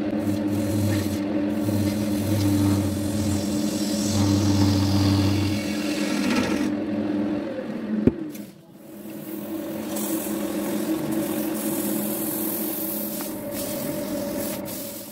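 Wood lathe running with a steady motor hum while a wood-and-epoxy-resin vase blank spins against a tool or abrasive, giving a continuous hissing scrape. The sound breaks off with a click a little past halfway, dips, then picks up again.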